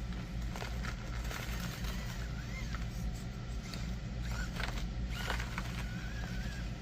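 Small electric RC rock crawler working over a rock course: a thin motor whine that rises and falls with the throttle, with scattered clicks and scrapes of the tyres and chassis on rock. A steady low hum runs underneath.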